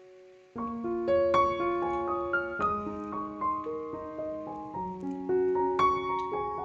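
Background piano music: a melody of single notes over held chords. It comes back in sharply about half a second in, after a short quiet gap.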